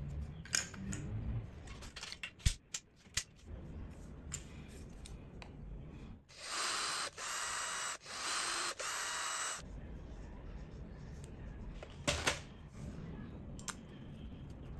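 Small cordless drill whirring in four short bursts, about halfway through, as it drills out a hole in a 3D-printed plastic plate. Before and after, sharp clicks and taps of small metal and plastic parts being handled.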